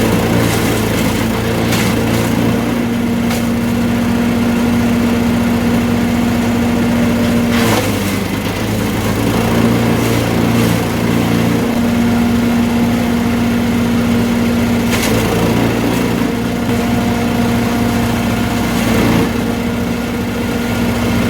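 Champion 338cc chipper shredder's single-cylinder gas engine running steadily, with several brief cracking noises as branches are chipped, the engine's tone dipping briefly under each load.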